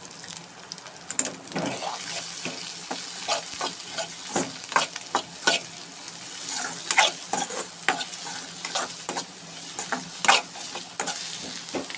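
A utensil stirring and scraping a frying mixture of scrambled egg, onion and tomato with masala in a pan, with irregular scrapes and knocks against the pan over a steady sizzle.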